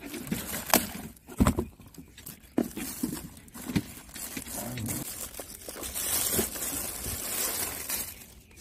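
Paper and plastic wrapping rustling and crinkling as a potted plant is pulled out of a cardboard box, with short knocks and clicks of the box being handled. The rustling thickens into a steady crinkle over the last few seconds.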